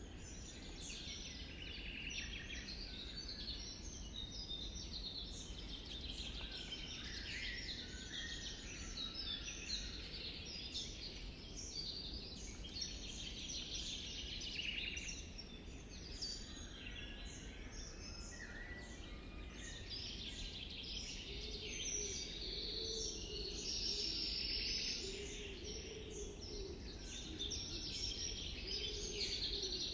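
Many songbirds chirping and singing, with short overlapping calls and trills throughout, over a faint low rumble.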